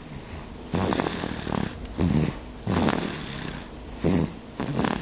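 Baby snoring: a run of about five separate snores, each under a second long, over quieter breathing.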